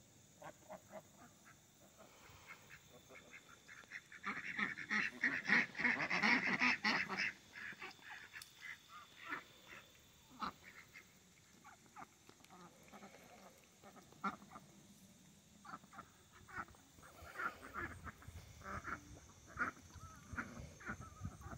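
A flock of domestic ducks quacking: a dense run of loud quacking starting about four seconds in and lasting some three seconds, then scattered single quacks.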